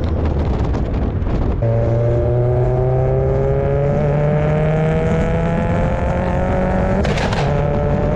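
Turbocharged Mazda Miata's engine and exhaust under way, its note climbing slowly in pitch as the car pulls through a gear after a break in the sound early on. A short burst of hiss about seven seconds in.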